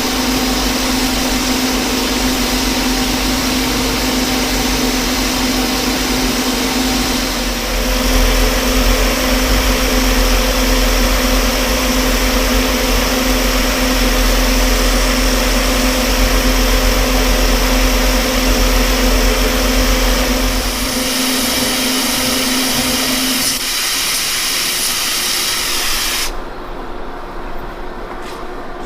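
Metal lathe running a roughing cut on a steel shaft: a steady motor hum and tone under the hiss of the coolant mister. The low hum drops out about 21 seconds in, the tone a couple of seconds later, and the mist hiss cuts off suddenly near the end.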